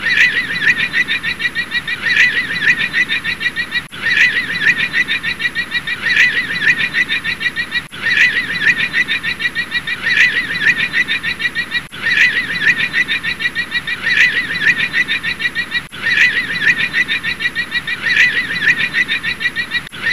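Llama calling: a high, rapidly pulsing cry that starts sharply about every two seconds, the same few seconds of calling repeated over and over.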